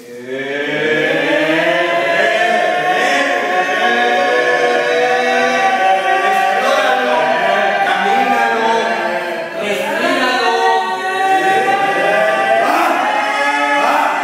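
A group of actors vocalizing together to warm up their voices: many voices holding tones at different pitches at once, overlapping in a continuous chorus, some sliding up and down in pitch.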